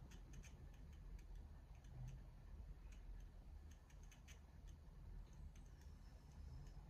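Near silence: room tone with a low hum and faint, irregular clicks.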